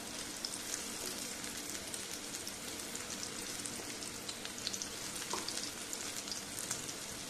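Coated bitter gourd (karela) slices shallow-frying in hot mustard oil in a kadhai: a steady sizzle with scattered small crackles.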